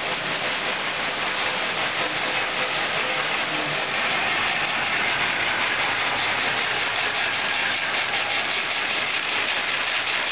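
Peanut roasting and processing line running: a steady, unbroken machine noise with faint hums underneath.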